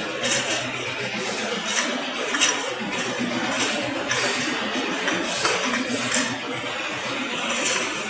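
Stainless steel vacuum flask bodies clinking against one another as they are packed by hand into a brazing tray, light metallic clicks coming every second or so over steady room noise and indistinct voices.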